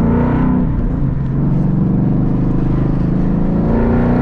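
Exhaust note of a 2011 Mustang GT's 5.0 Coyote V8, heard from inside the cabin through GT500 over-axle pipes with the resonators deleted. It is loud and raspy, revving up near the start and again near the end as the car accelerates.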